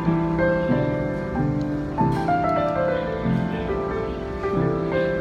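Painted street piano played solo: a J-pop ballad arranged for piano, with a melody stepping down over sustained low chords that change about once a second.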